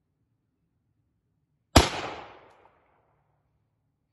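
A single shot from a Universal M1 Carbine pistol in .30 Carbine, about two seconds in, its report echoing away over about a second.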